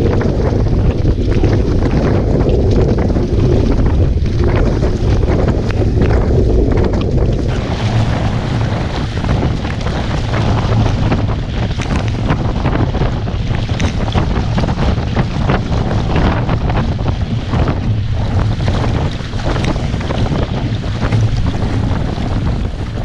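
Wind buffeting the microphone in a heavy low rumble over the rush and splash of water along the hull of a Hobie Cat Bravo catamaran under sail. The splashing and hiss grow busier about a third of the way in.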